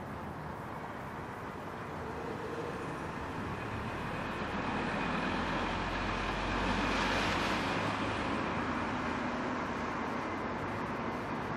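Tram approaching a stop, its running rumble and hiss growing louder to a peak about seven seconds in, then easing off slightly and holding steady.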